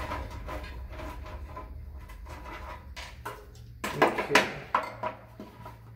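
Light clicks and rattles of a plastic PC case fan being worked free of a computer case and handled, with a cluster of louder knocks about four seconds in as the fan is set down on the desk.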